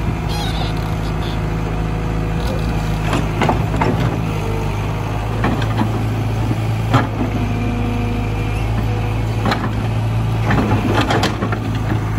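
Caterpillar E120B excavator's diesel engine running steadily while the arm and bucket work the soil, with irregular sharp metal clanks and knocks from the bucket and linkage. The loudest clank comes about seven seconds in.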